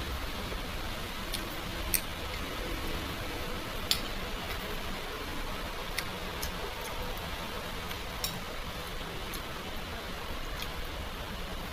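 A few sharp light clicks, roughly two seconds apart, over a steady background noise.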